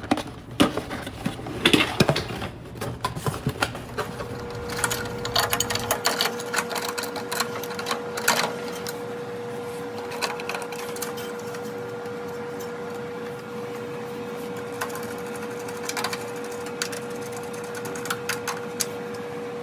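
Scattered metallic clicks and clatter of a new microwave-oven magnetron and its mounting parts being handled and fitted into the sheet-steel chassis, over a steady faint hum that comes in about four seconds in.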